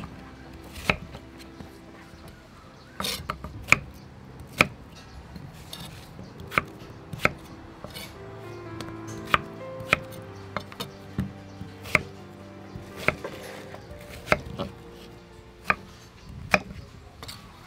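Cleaver cutting through peeled wax gourd and striking a wooden chopping block: sharp, irregular knocks, roughly one a second.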